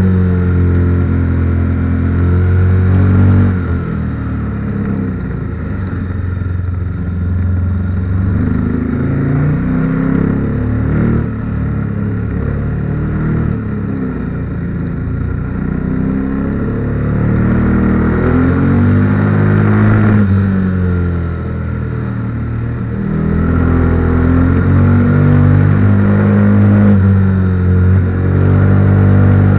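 KTM 1290 Super Duke R's V-twin engine heard from a camera mounted on the bike, its revs rising and falling as it accelerates and backs off through the bends. It drops quieter twice for a few seconds and pulls hard again near the end.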